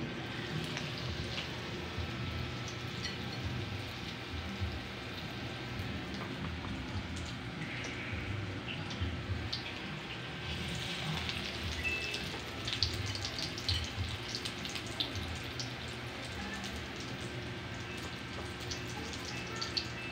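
Tokwa (firm tofu) in an egg and breadcrumb coating frying in a pan on a gas burner: a steady sizzle with scattered crackles and pops, which come thicker from about twelve seconds in.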